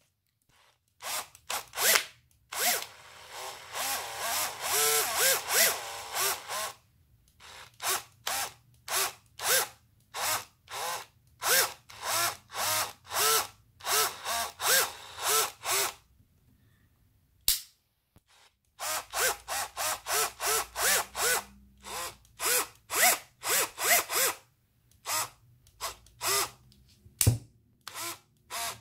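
Bosch PSR 1800 LI-2 18 V cordless drill driver spinning with no load in many short trigger pulls, each whirring up and winding down. One longer run lasts about four seconds near the start, and there is a pause of about three seconds in the middle.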